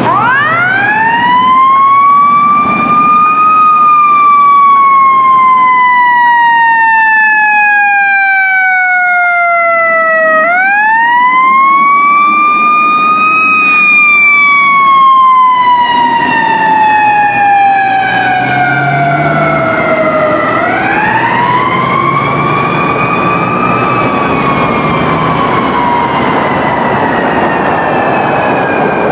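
Fire engine's Federal Q2B mechanical siren wailing. Three times, about ten seconds apart, it winds up quickly to a high pitch and then slowly coasts down.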